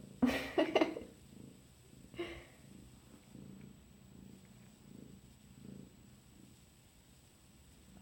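Domestic cat purring, a low sound that swells and fades in slow pulses with each breath. A few brief louder sounds come in the first second, and a shorter one about two seconds in.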